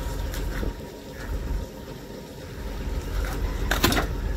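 Wind buffeting the microphone as a low rumble that eases for a moment, with a sharp knock near the end.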